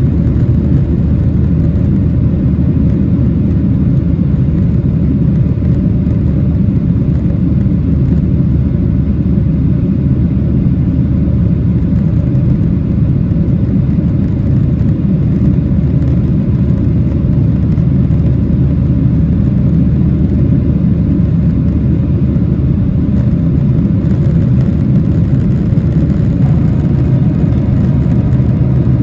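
Steady low rumble of a Boeing 737-800's CFM56 jet engines heard from inside the passenger cabin, running under power without change.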